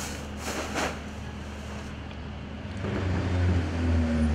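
Hospital medical-waste incinerator being loaded: a brief rustling rush about half a second in as a bag of waste goes in, then from about three seconds a low, steady, engine-like rumble from the burning furnace.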